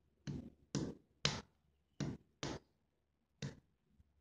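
Two-pound hammer striking a fired sample of homemade refractory in a crush test: six short, sharp knocks, about half a second apart, with a longer gap before the last.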